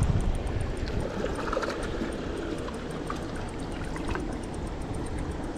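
Water of a small, shallow stream running and trickling steadily, with a low thump right at the start.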